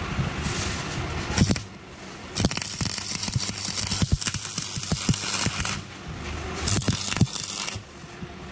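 Stick-welding arc crackling and hissing as a steel gate hinge is welded to a steel bar: one run of about three seconds, then a shorter burst about a second later.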